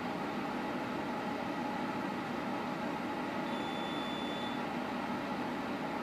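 110-volt electric quartz space heater running, its fan giving a steady whir with faint humming tones.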